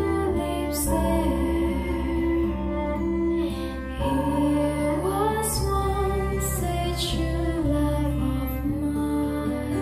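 A song with a woman singing, played back through Wharfedale Diamond 225 bookshelf speakers. The voice glides over deep, held bass notes.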